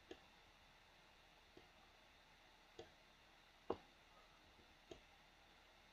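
Computer mouse clicking five times, faint and spaced out, the loudest click about two-thirds of the way in, over near-silent room tone.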